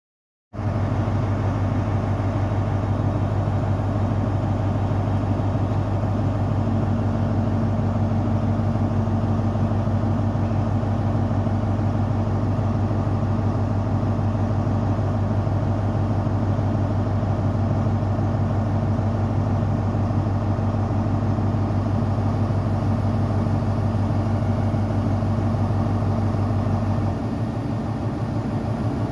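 Diesel engine of a Class 43 InterCity 125 power car running steadily at a standstill: a loud, even, low drone with a steady higher hum joining in. Near the end the low drone drops away and the sound changes.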